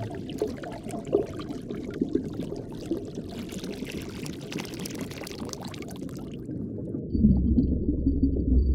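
Underwater water sound, bubbling and moving water full of small crackles and hiss. About six seconds in the crackle and hiss drop away, and a second later a louder, deep low rumble takes over.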